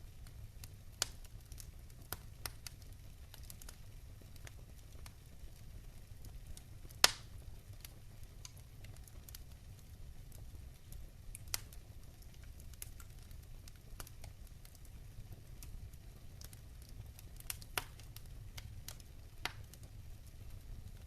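Wood fire in a fire pit crackling: irregular sharp pops and snaps, one much louder pop about seven seconds in, over a low steady rumble.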